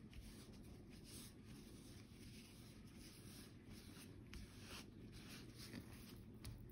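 Faint, soft rubbing strokes, a few scattered swishes: the surface of a sports card being wiped clean.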